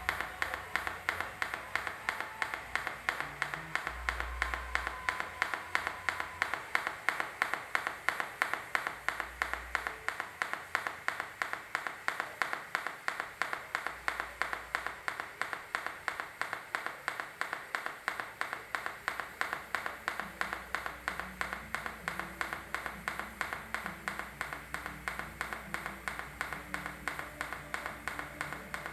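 Pulsed TIG welding arc on stainless steel pipe, buzzing in a steady rhythm of about three pulses a second.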